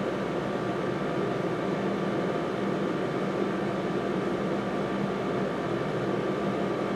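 Steady, even motor hum with a low drone and no changes.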